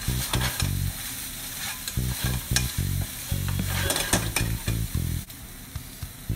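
A spatula stirs and scrapes minced chicken and dried red chilies sizzling in a frying pan, in three brisk bursts of scraping over a steady sizzle.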